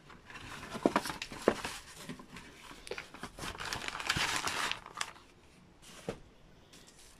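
Clear plastic bag around a reel of tape crinkling as it and a cardboard tape box are handled, with a few light knocks. The crinkling is loudest about three to five seconds in, then dies down.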